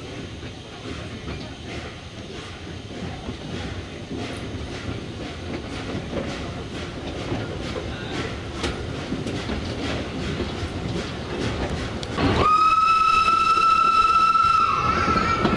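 Narrow-gauge steam train running, its wheels clicking over the rail joints as it gathers speed and grows louder. About twelve seconds in, the steam locomotive's whistle sounds one long, steady note that sweeps up quickly at the start.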